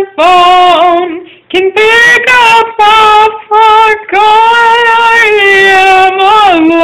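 A young woman singing unaccompanied, holding long, fairly steady notes in a few phrases with brief breaks for breath. Sung close to a phone microphone and very loud, so the sound is pushed to its limit.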